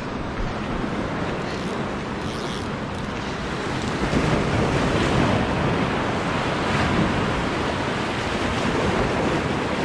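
Ocean surf breaking and washing over a lava-rock shoreline, a steady rushing sound with wind on the microphone.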